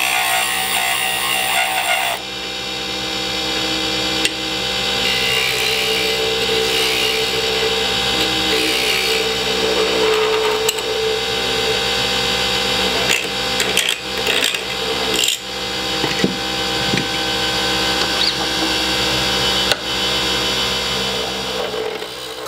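Mini wood lathe running with a steady motor whine while a turning tool cuts and scrapes a spinning bottle-stopper blank of Alumilite resin and cactus-juice-stabilized maple burl. The rasp of the tool comes and goes over the motor, with a few sharp ticks and knocks past the middle.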